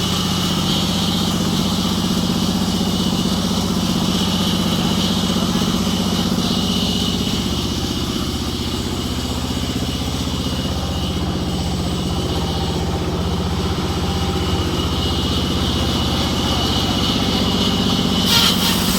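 Sawmill machine's engine running steadily at an even pitch, with a steady high hiss above it and a brief clatter near the end.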